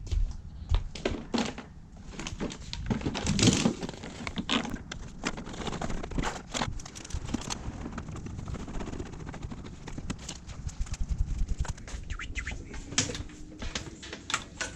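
Irregular knocks and clicks with some rustle, like equipment being handled.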